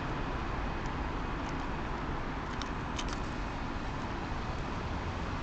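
Double-decker bus engine running steadily as the bus manoeuvres out of its stand, with the general hum of bus-station traffic.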